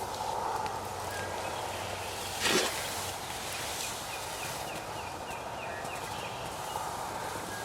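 A run of about eight short, evenly spaced turkey yelps, with a brief sudden rush of noise, the loudest thing here, about two and a half seconds in.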